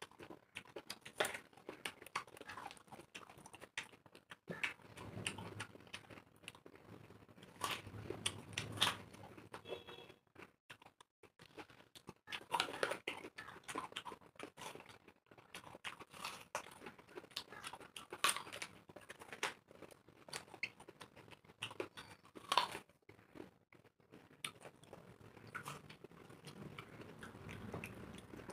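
Two people biting into and chewing raw apples, with irregular crisp crunches throughout.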